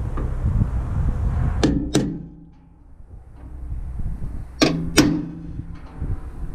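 Hammer striking a center punch on the truck's sheet-metal body, two pairs of sharp ringing taps, marking spot welds so the drill bit won't wander.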